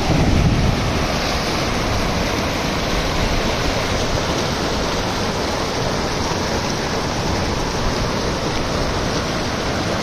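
Fast, shallow mountain stream rushing over rocks and boulders: a steady, even whitewater noise, a little louder and deeper in the first second.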